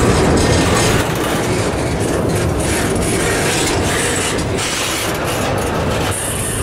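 Double-stack intermodal train rolling past at close range: steel wheels on rail, with a steady rumble and repeated clacks as the well cars' wheels cross rail joints.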